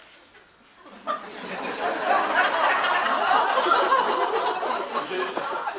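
Theatre audience laughing: the laughter breaks out about a second in, swells, then slowly dies down.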